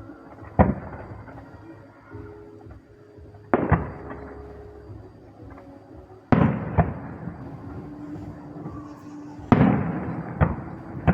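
Fireworks shells bursting: four sharp booms about three seconds apart, each trailing off in echo, with smaller pops after the last two.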